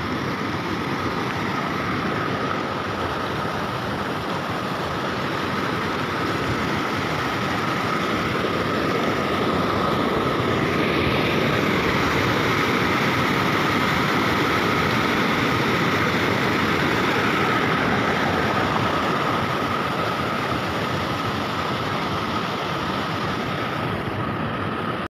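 A stream in flood after heavy rain: muddy water rushing steadily over and between rocks, a little louder in the middle.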